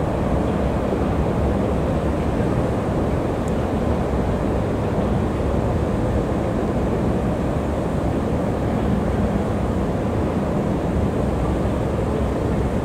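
Steady low rumble of a long metro-station escalator running, with a faint hum underneath, heard from on the moving escalator.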